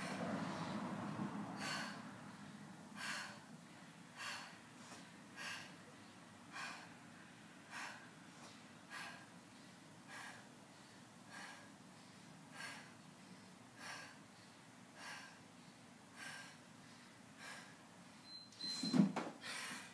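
A woman's short, sharp exhales, about one every 1.2 seconds, in time with her tricep dips. Near the end a brief high beep sounds, then louder sounds of movement.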